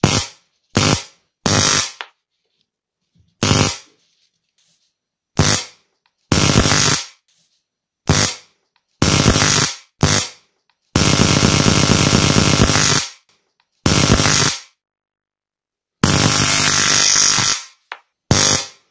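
High-voltage arc from an overvolted car ignition coil driven off the mains through a phase-fired controller, jumping about 3 cm of air to a screw: a harsh electric buzzing crackle. It comes in more than a dozen separate bursts, most under a second, the longest about two seconds, each starting and stopping abruptly.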